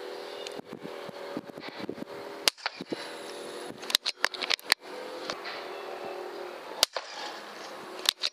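.22 PCP air rifle being fired and cycled: sharp cracks about 2.5, 4 and 7 seconds in among smaller clicks, over a steady hum.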